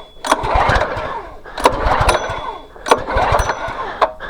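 Small gasoline engine of a pressure washer being pulled over about four times in a row, each pull a quick whirr that fades without the engine catching.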